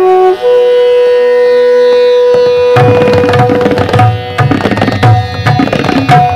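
Bansuri flutes hold one long steady note over a drone; about two and a half seconds in, the tablas come in with a fast rhythm of strokes, the low bass-drum strokes standing out.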